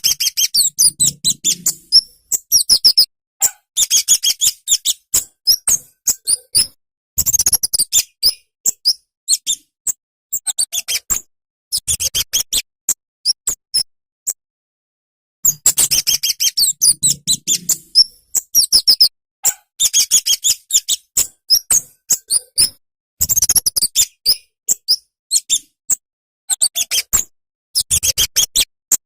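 Flowerpecker (cabe-cabean, called kemade) singing: rapid, high-pitched chips and twitters in bursts of two to three seconds with short pauses between. The same run of phrases repeats about halfway through.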